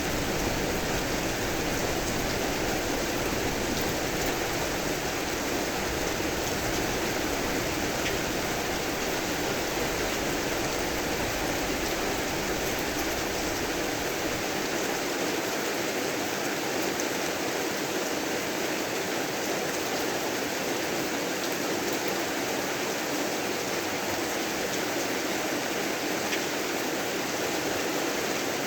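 Steady heavy rain falling as an even hiss, with a low thunder rumble underneath that dies away about halfway through.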